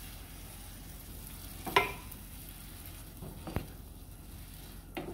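Onions and freshly added diced tomatoes sizzling in olive oil in a skillet while a wooden spoon stirs them. Three short, sharp knocks come through; the loudest is about two seconds in.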